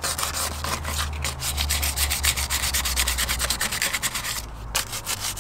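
Coarse 80-grit sandpaper rubbed by hand in quick back-and-forth strokes over a painted alloy wheel, scratching the old paint off down to bare metal. The strokes break off briefly near the end.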